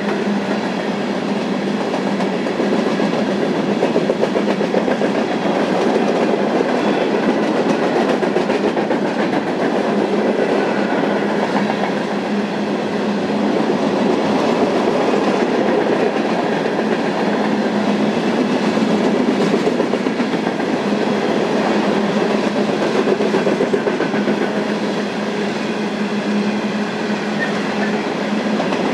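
Freight cars of a BNSF train rolling past, a steady, loud noise of steel wheels running on the rails with no letup.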